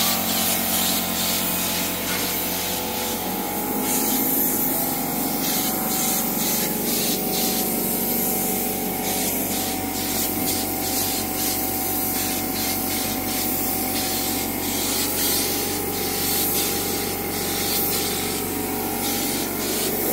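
Compressed-air spray gun hissing in repeated short bursts as sanding sealer is sprayed onto bare wood. A steady machine hum runs underneath.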